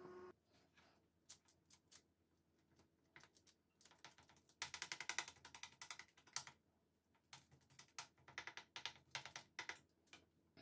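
A fork pricking puff pastry squares on a parchment-lined baking tray, its tines making light, sharp taps. A few scattered taps come first, then two quick runs of rapid tapping with a pause between them.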